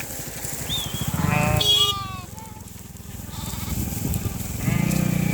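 A flock of sheep bleating, several short calls overlapping about a second in, with a steadier low-pitched sound coming in near the end.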